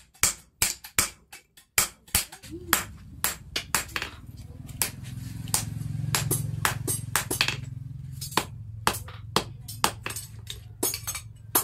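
Hammer blows on red-hot steel on an anvil, striking about four times a second at first, then slower and more spaced out. A low steady hum comes in a couple of seconds in and is loudest near the middle.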